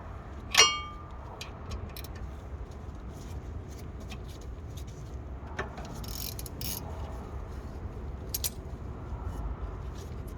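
A single sharp metallic clink with a short ring about half a second in, as metal strikes metal during brake work, followed by a few faint clicks and rustles of handling parts over a steady low rumble.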